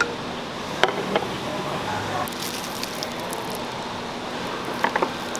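Restaurant dining-room ambience with indistinct background chatter, broken by a few sharp clicks of tableware: two about a second in and a cluster near the end.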